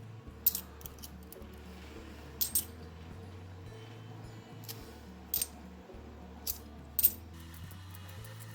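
50p coins clinking as they are handled and sorted: about half a dozen short, sharp metallic clicks spread through, two of them close together. Quiet background music with a low bass line runs underneath.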